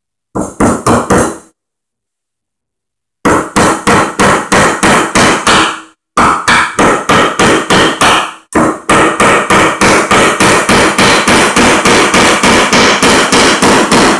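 A hammer driving galvanized nails into 2x4 lumber: quick, even blows at about three a second, in four runs with short pauses between them.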